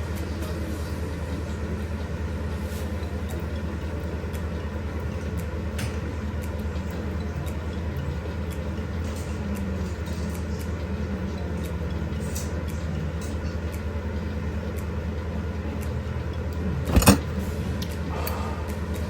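A steady low mechanical hum, with a single sharp knock about 17 seconds in.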